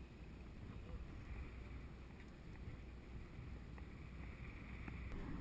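Steady low rumble of a sport-fishing boat idling, with wind noise on the microphone.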